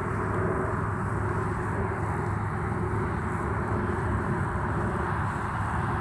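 Steady outdoor background noise with a low hum underneath and no single event standing out.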